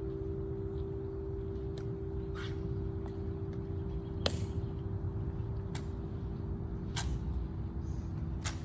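Sharp, scattered clicks of a tomb sentinel's heels and footsteps on the stone plaza as he turns and marches. The loudest click comes a little past the middle. Under them are a steady low hum and an outdoor rumble.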